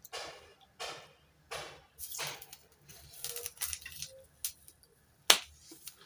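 Kitchen handling noises: a run of short scrapes and rustles, then two sharp clicks near the end, the second the loudest.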